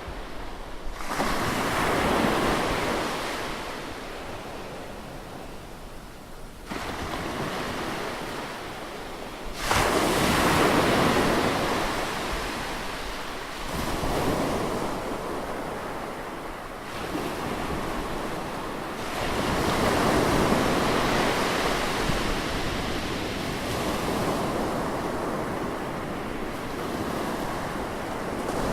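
Ocean waves breaking close on the shore, one after another: each break rises suddenly into a loud rush of surf that slowly washes back, with about five fresh breaks over the stretch.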